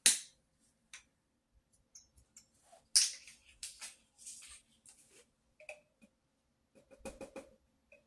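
Scattered clicks, clacks and rustles of painting supplies being handled. The loudest clacks come at the start and about three seconds in, with a quick run of taps about seven seconds in.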